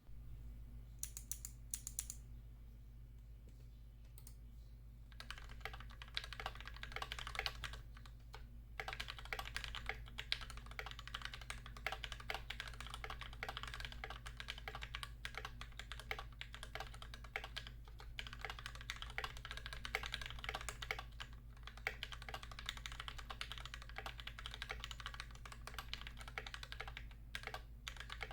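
A few sharp, bright clicks from a Kailh Speed Navy clicky switch open the sound. A few seconds in, steady, fast typing begins on an Idobao ID80 mechanical keyboard. The keyboard has lubed Gateron GeekMaker Keyfirst Cream linear switches and NK_ x Tai-Hao cubic keycaps.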